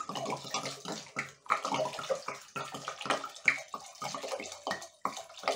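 Red wine pouring from an upturned glass bottle into a steel pot of hot syrup with orange slices, gurgling and splashing unevenly as it empties.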